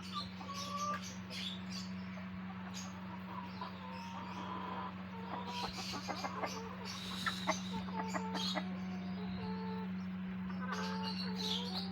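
Chickens clucking among a mix of short bird calls and chirps, over a steady low hum.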